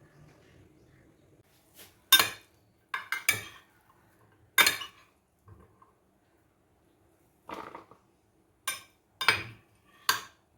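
Kitchen utensils clinking and knocking against a dish: several sharp separate knocks at irregular intervals, with pauses between them.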